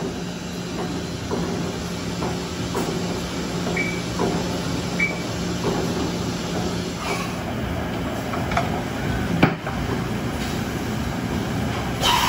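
Mazak VCS-530C CNC vertical mill running, its spindle head moving down on its axis slides, with a steady hum that stops about seven seconds in and a scatter of light mechanical clicks. A single sharp click comes about nine and a half seconds in, and a short rushing burst near the end.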